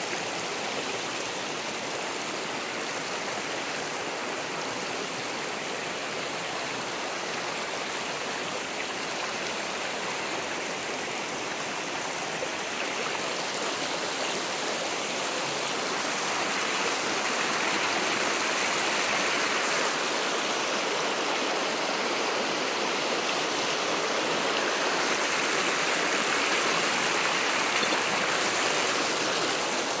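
Shallow, rocky creek running over and between stones: a steady rush of water that grows a little louder about halfway through, where small rapids of white water run close by.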